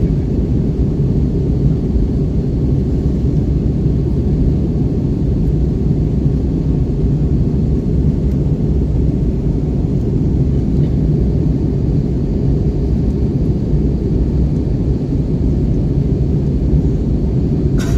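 Steady low rumble of an Airbus A320 airliner heard from inside the passenger cabin.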